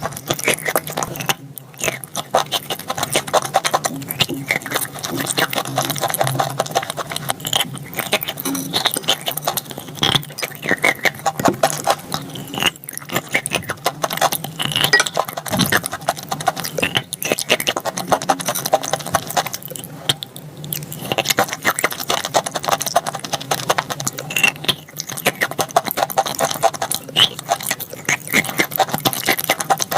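Close-miked crunching and chewing of dry edible chalk: a dense, rapid crackle of small snaps, broken by a few brief pauses between bites.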